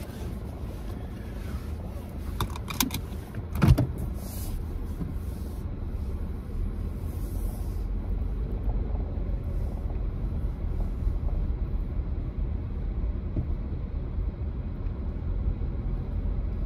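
Steady low rumble of a car running, heard from inside the cabin, growing slightly stronger partway through. A few sharp clicks about three seconds in and a louder clunk just after.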